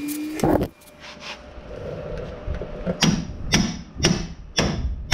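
A tie rod end separator being worked on the truck's outer tie rod end with a long-handled tool: one metal knock about half a second in, then a run of sharp metallic knocks about twice a second from about three seconds in.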